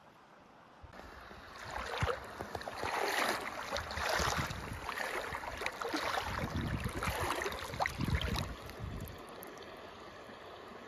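Shallow river water sloshing and splashing right at the microphone as a hand moves through it, from about a second and a half in until near the end, when it settles into the steady running of the stream.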